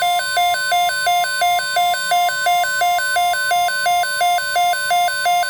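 NOAA Weather Radio warning alarm tone, a steady 1050 Hz tone, with a weather radio receiver's rapid alternating two-tone alert beeping over it, about four beeps a second. The alarm signals that a watch or warning broadcast is about to follow.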